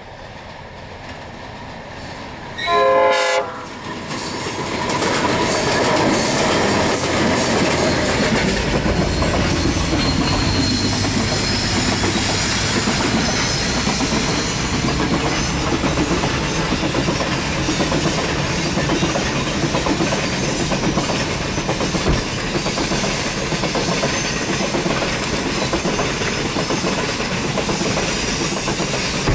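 Diesel freight train's horn sounds once, briefly, about three seconds in. The train then passes close by a level crossing with a steady loud rumble and wheel clatter over the rails.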